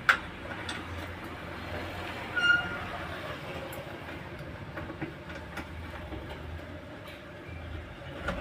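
Light metallic clicks and scrapes of a 10 mm tommy (box spanner) turning a scooter horn's mounting bolt loose, with a sharp click at the start and one short squeak about two and a half seconds in.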